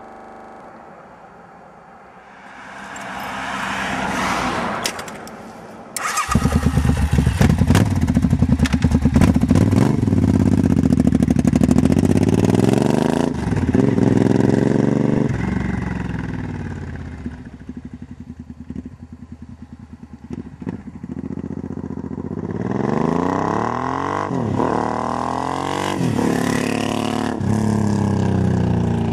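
Suzuki VX800 V-twin with the dB killers pulled from its exhaust: it cranks on the starter for a few seconds and catches about six seconds in. It is then revved up and down several times, settles to a rumbling idle, and is revved again near the end.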